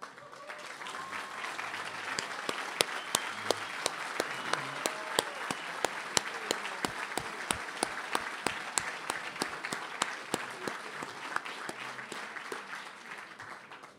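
A large audience applauding, building up over the first couple of seconds and dying away near the end. Louder, crisp single claps about twice a second stand out close to the microphone from a person clapping along at the podium.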